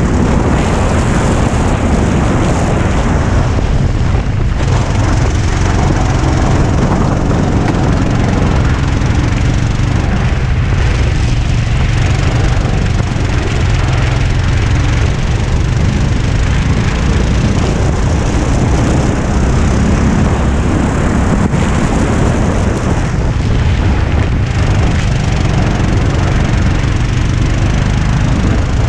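Go-kart engine running hard at racing speed, heard from a camera mounted on the kart, loud and steady, with its note dipping briefly a few times.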